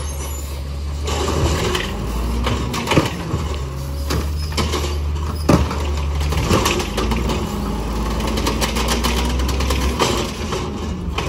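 LNG-fuelled automated side-loader garbage truck running at the curb while its hydraulic arm grabs a yard-waste cart and lifts it: a steady low engine rumble with several sharp clanks of the gripper and plastic cart, and a hum under hydraulic load about halfway through.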